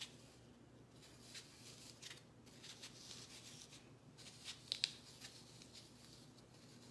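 Faint scraping and cutting of a kitchen knife carving out the inside of an apple, with two sharp clicks close together a little before five seconds in.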